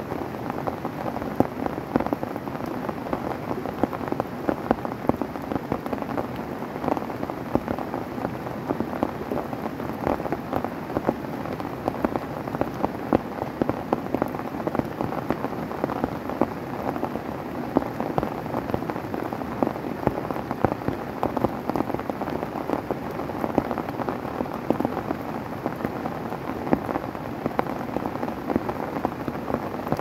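Heavy rain falling steadily on a nylon tent fly, a continuous hiss made of many separate drop hits.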